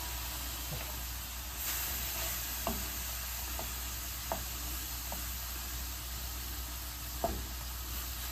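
Diced velveted chicken sizzling in a hot non-stick frying pan while being stirred with a wooden spoon, with a steady hiss and a few light taps of the spoon against the pan.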